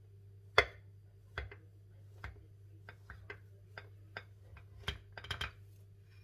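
A kitchen knife cutting through a dense fruit cake, the blade knocking and clicking against the plate beneath: one sharp knock about half a second in, then a dozen or so lighter clicks, bunching together near the end.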